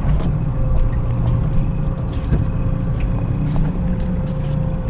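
A fishing boat's outboard motor running steadily at low speed: a low drone with a steady hum above it.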